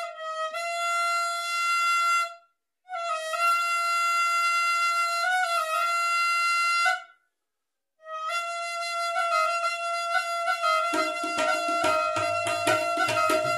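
Punjabi algoza (jori), a pair of wooden duct flutes blown together, playing long held notes with two short breaks for breath. About eleven seconds in, the playing turns fast and rhythmic, with a lower tone sounding underneath.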